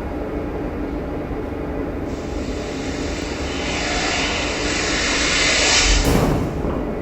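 Sci-fi spaceship sound effect: a steady low rumble with a hiss that builds over several seconds, cuts off sharply about six seconds in, and is followed by a short bright burst before the rumble settles back.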